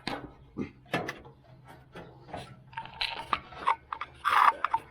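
Scattered clicks, taps and light rattles of grill parts being handled, with a louder scraping clatter near the end.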